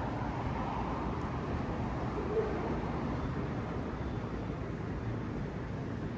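Steady outdoor background noise, a low even rumble like distant road traffic, with no alarm tone or voice message heard.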